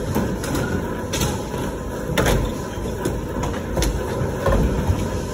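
Skateboard wheels rolling with a steady rumble, broken by several sharp clacks of a board striking the wooden ramp, the loudest about two seconds in.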